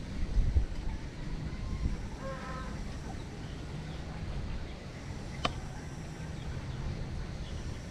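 Outdoor ambience with a steady low rumble. A short bird call comes about two and a half seconds in, and a single sharp click comes about five and a half seconds in.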